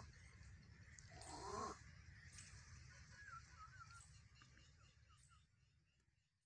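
Faint outdoor animal sounds: one short call a little over a second in, rising in pitch, then thin wavering bird chirps, fading out near the end.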